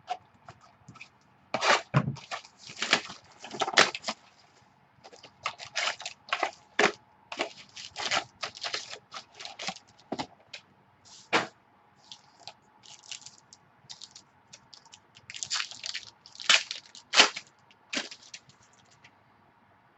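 Trading cards and their plastic packaging being handled: irregular crackles, scrapes and sharp clicks of card stock and wrapper, with the loudest clusters about two seconds in, around four seconds, and near the end.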